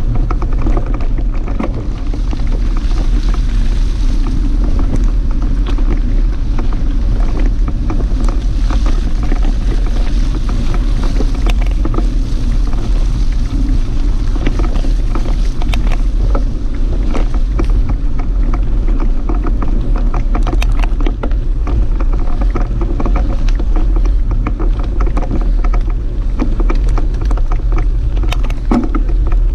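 Mountain bike riding on a muddy gravel forest track: steady wind noise on the camera microphone and tyres rolling over mud and gravel, with frequent small clicks and rattles from the bike.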